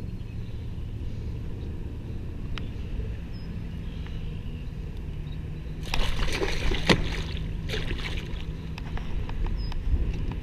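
Northern pike thrashing at the surface beside a kayak: a burst of splashing and slaps about six seconds in, over a steady low rumble.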